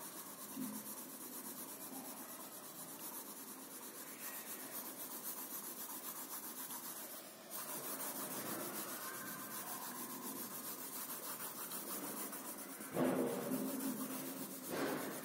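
Pencil shading on paper: quick back-and-forth strokes make a steady scratchy rubbing, which stops briefly about halfway through. A short, louder sound with a low pitched hum comes about two seconds before the end.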